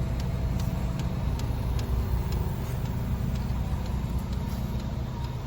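HCalory diesel air heater running: its fuel dosing pump ticking regularly, a couple of times a second, over the low steady hum of the heater's burner and blower fan.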